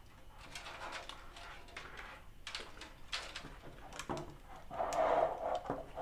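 Handling noises: light knocks, clicks and rustles as an NZXT PC case and computer parts are moved about on a desk, with a louder, drawn-out sound about five seconds in.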